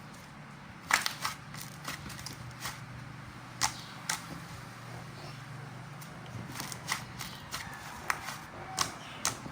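Butter slime being squished and poked by hand, giving about a dozen irregular sharp clicks and small pops, over a steady low hum in the background.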